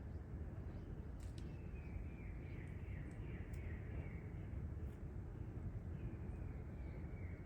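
Steady low outdoor background rumble, with a thin wavering bird call running for a few seconds, stopping, and starting again near the end.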